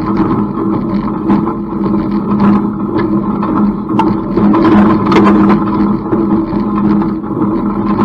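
Tractor engine running steadily while pulling an IH 47 wire baler through alfalfa hay, with occasional sharp knocks from the baler's working parts.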